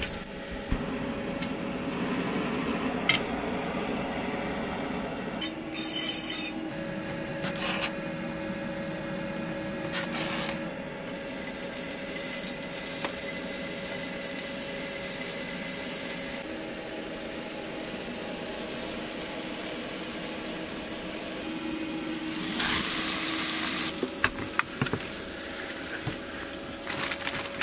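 Raw chicken sizzling as it goes into a hot frying pan on a butane camp stove, with scraping and stirring in the pan. A few clicks and knocks come first, and there is a louder burst of sizzling about two-thirds of the way in.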